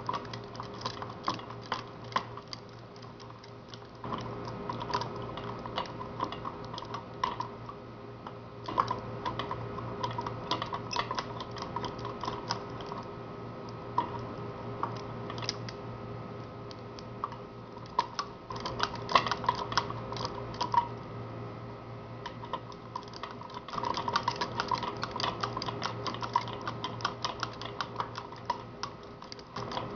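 Rapid, irregular small clicks and taps from metal hand tools working a tamper-proof screw loose, over a steady low hum.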